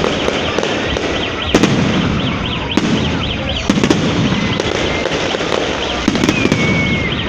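Aerial fireworks display going off: sharp bangs from shells bursting about a second and a half, three, four and six seconds in, over a continuous crackling haze.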